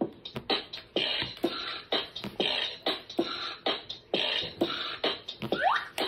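Bop It toy's beatbox mode playing: a fast electronic beat of sharp drum-machine hits, with quick sweeping scratch-like sounds near the end.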